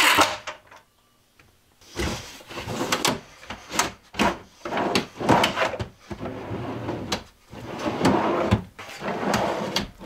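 A cordless drill driving a screw stops just after the start. Then, from about two seconds in, a wooden pull-out pantry shelf is slid in and out several times on metal drawer slides, with rolling, rattling strokes and knocks as it reaches its stops.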